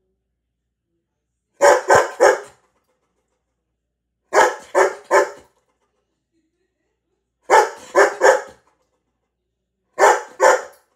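A dog barking in quick runs of about three barks, four runs roughly three seconds apart.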